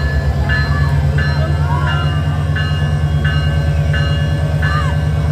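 Diesel locomotive engine running with a deep, steady drone. A level-crossing bell rings over it, about three strokes every two seconds.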